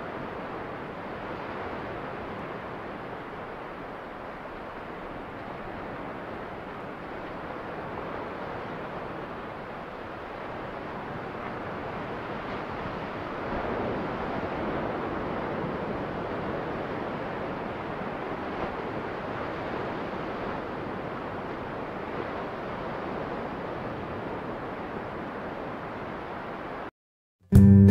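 Steady outdoor wind rushing over the microphone, rising and falling gently. It cuts off abruptly near the end, and strummed acoustic guitar music starts.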